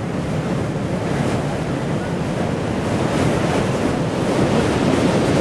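Heavy ocean surf from a hurricane swell breaking and rushing, a steady roar that grows somewhat louder about three seconds in, with wind buffeting the microphone.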